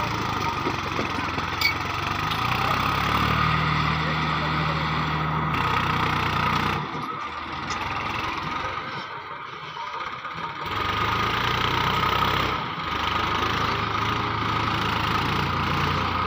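Swaraj 960 FE tractor's three-cylinder diesel engine working under load as it pulls an overloaded trolley of soil over soft ground. The engine note steps in pitch and breaks off abruptly a few times.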